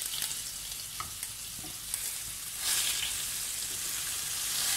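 Whole stuffed eggplants sizzling in hot oil with mustard seeds and curry leaves in a wok, a wooden spatula knocking lightly as it pushes them about. The sizzle grows louder about two and a half seconds in.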